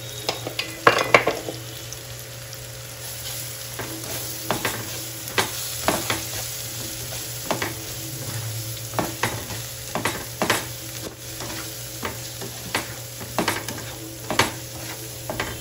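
Onion, tomato and spice masala sizzling in hot oil and ghee in a frying pan while a spatula stirs it, scraping and knocking against the pan about once or twice a second under the steady sizzle. This is the masala for dal fry frying down before the cooked dal goes in.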